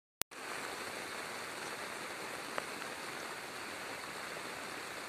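Heavy monsoon rain falling over floodwater: a steady, even hiss that cuts in with a click a moment after a brief silence.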